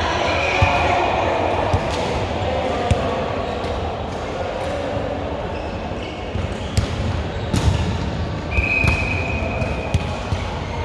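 Indoor volleyball play: a ball is struck and bounces on the court with several sharp smacks, over the chatter of players and spectators echoing in the hall. Two brief high-pitched tones sound, one near the start and one about two-thirds of the way in.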